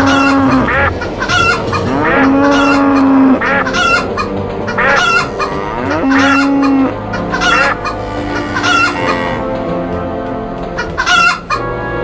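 Chicken calls, clucking over and over about once a second. Three long, low held calls come in between them.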